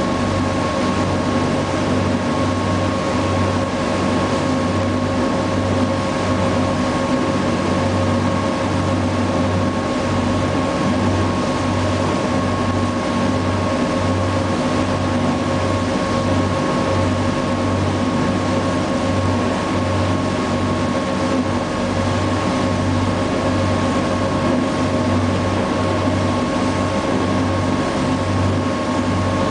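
Sightseeing river boat's engine running steadily, heard on board: a low, unevenly pulsing drone with a steady hum over it.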